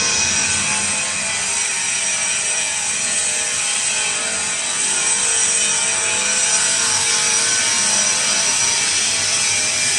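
Stainless steel perfume mixing tank running: a steady, hissing mechanical noise with no change in level.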